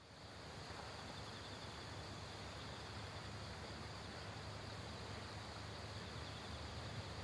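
Faint rural ambience: insects chirping in a fast, steady trill, over the low drone of a diesel locomotive still far off on the line.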